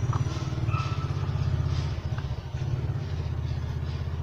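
A motor engine idling with a steady low rumble. A couple of light clicks come as a router bit is taken from its wooden case.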